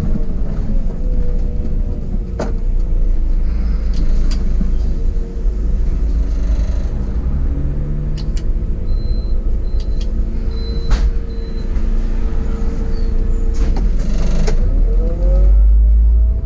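City bus engine running at a stop, heard from the driver's cab, with scattered clicks and a few short high beeps as the door controls are worked. A brief hiss of air comes about 14 seconds in, and the engine grows louder near the end as the bus pulls away.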